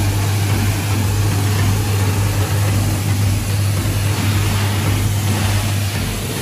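Pressure washer running: a steady low hum from the machine under an even hiss of the water jet spraying a plastic car bumper.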